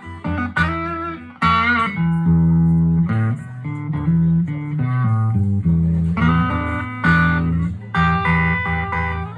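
Electric guitar played through an amplifier: a continuous passage of single-note lines and chords over ringing low notes.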